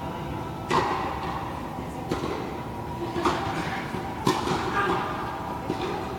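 Tennis ball being hit in a rally on an indoor court: four sharp racket strikes and ball bounces about a second apart, echoing in the large hall, with a few fainter knocks near the end.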